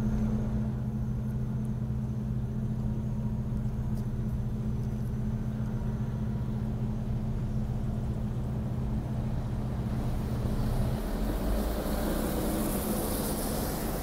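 Tram running: a steady electric hum of two low held tones over a rumble. The lower tone stops about eleven seconds in as a rising hiss takes over.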